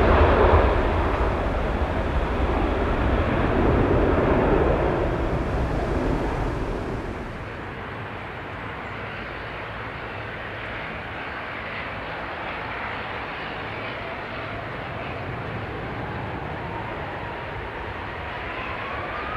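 Boeing 747-400 freighter's jet engines at takeoff thrust as it lifts off, loud and slowly fading. After about seven seconds this gives way to the quieter, steady jet-engine noise of a Boeing 777 on the ground, with a rising whine near the end as its engines spool up.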